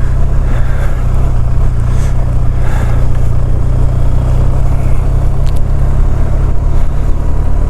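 BMW R1250RT's boxer twin engine running steadily on the move, its low drone mixed with wind and road noise.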